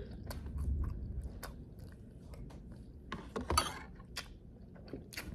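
Metal fork and spoon clicking and scraping in a cup of instant ramen, with quiet eating sounds: scattered light clicks and a louder scrape about three and a half seconds in.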